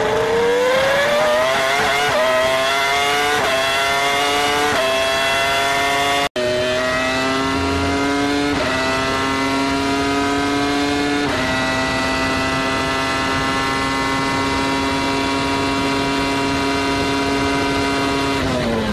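Minardi Formula One car's Cosworth V10 heard onboard, accelerating hard with quick upshifts: the high-pitched note climbs and drops back at each change. After a brief cutout about six seconds in, a second Minardi V10 upshifts twice and then holds a steady high note at full throttle. The note starts to fall just before the end as the driver lifts.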